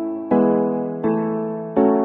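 Background music of keyboard chords, a new chord struck about every three-quarters of a second, each fading before the next.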